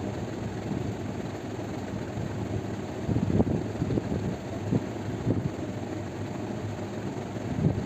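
A steady low, machine-like hum, with a few short soft knocks or rustles around the middle and near the end.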